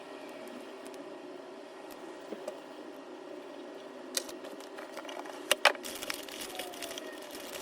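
Handling of junk-journal papers and craft materials: a few sharp clicks and taps, two close together about five and a half seconds in, then light crackling and rustling near the end, over a steady background hum.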